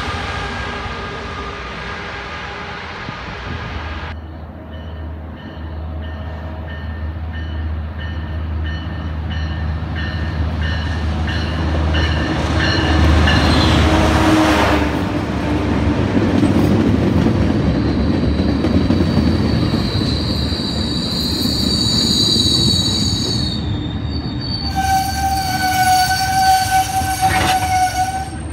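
Metrolink passenger train rolling slowly past at close range: a steady low drone in the first half, then the bilevel coaches going by with high-pitched wheel squeal in the last several seconds.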